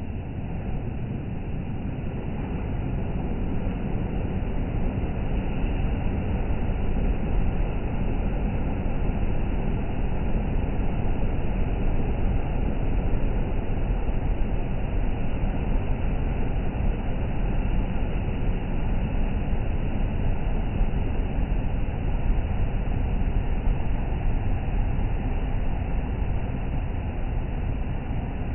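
Sea surf and wind giving a steady, loud rumbling noise, heavy in the bass, which swells slightly in the first few seconds and then holds.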